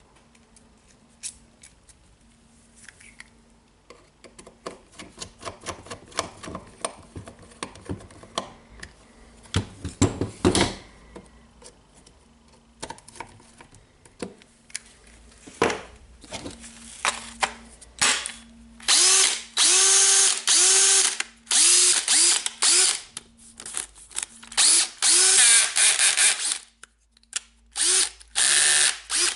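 Clicks and knocks of the cordless drill being handled, then the DeWalt 18V XR cordless drill's brushed motor run in about eight short bursts from trigger pulls, each winding up and spinning down. This is a test run of the freshly replaced armature.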